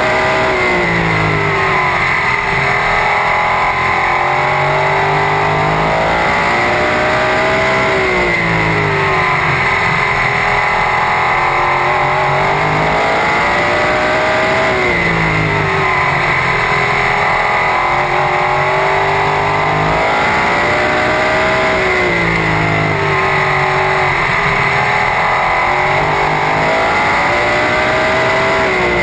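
Super sprint race car engine heard from the cockpit at racing speed: its pitch drops as the driver lifts for each pair of turns and climbs again under acceleration down the straight, repeating every six or seven seconds as the car laps a short oval.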